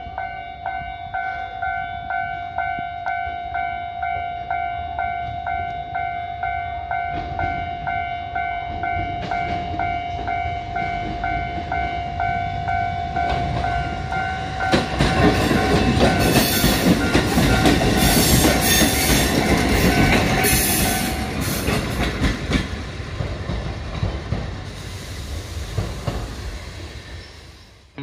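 A level crossing warning bell rings in a steady repeating pattern. A two-car Kotoden 1250-series electric train comes up and passes, its wheels clattering over the rail joints, loudest in the middle. The bell stops about three quarters of the way through, and the train noise then fades out.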